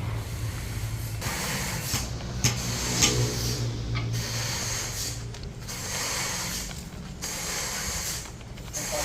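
Sawmill machinery running: a steady low motor hum for the first few seconds, then hissing noise that starts and stops in bursts of about a second, with a couple of sharp knocks about two and a half and three seconds in.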